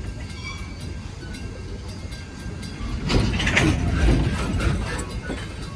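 Steam excursion train rolling along the track: a steady low rumble with wheel clatter, swelling louder about three seconds in for a couple of seconds.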